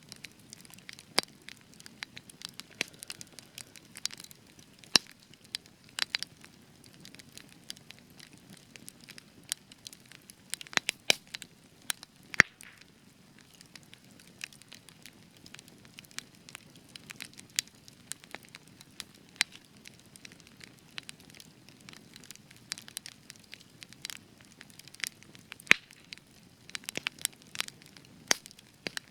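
Spruce-wood campfire burning, with sharp irregular crackles and pops over a soft low rush of flame.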